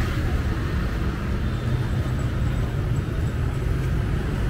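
Steady street traffic: motorbikes and cars passing on a city street, heard mostly as a low rumble.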